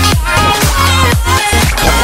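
Background electronic dance music with a steady kick-drum beat, about two beats a second, over a bass line and a melody.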